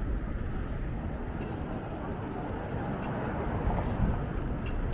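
Wind buffeting the microphone in a steady, uneven low rumble, over general city street noise.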